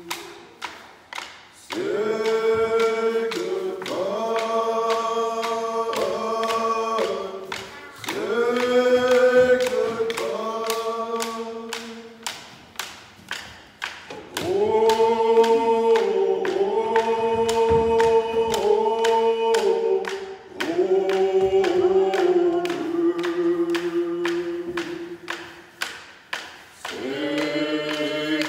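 Group of men and women singing a song together to hand drums beaten in a steady beat, about two strokes a second. The singing comes in long held phrases with short breaks, where the drums carry on alone.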